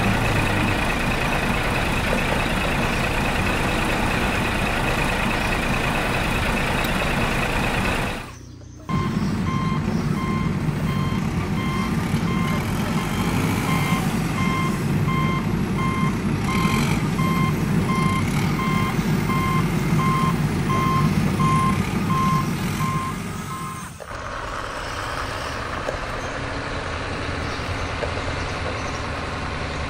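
Toy RC excavator's electronic sound module playing a rumbling engine effect with repeated reversing beeps in an even on-off pattern. The beeps stop about 24 seconds in, after which a quieter steady running sound continues.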